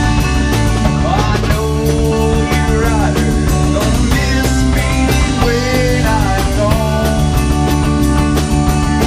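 Rock band playing live: drum kit, electric bass, electric guitar and keyboard together, with a man singing the lead melody from about a second in until near the end.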